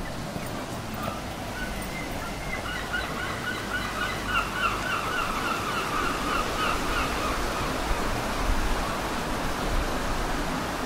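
A gull calling a rapid run of short, repeated notes, about three or four a second, starting about a second in and dying away after about seven seconds, over a steady hiss.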